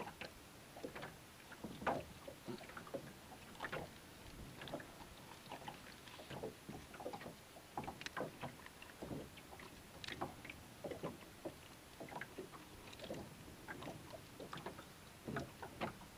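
Irregular light clicks and knocks of pliers, treble hooks and a lure being worked out of a pike's mouth by hand.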